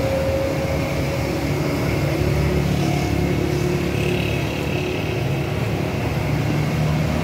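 A steady low mechanical rumble with a hum in it, like a motor running.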